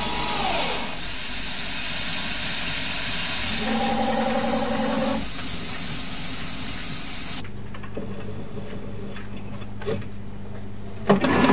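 Steady hiss of a spray-mister coolant nozzle on a CNC lathe, with a brief steady tone joining it about four seconds in. About seven seconds in the hiss stops abruptly and a lathe motor's steady low hum takes over, with a few faint clicks.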